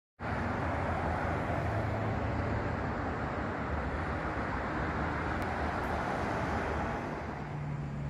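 Steady road traffic noise from cars driving along a busy multi-lane street, with a low engine hum underneath.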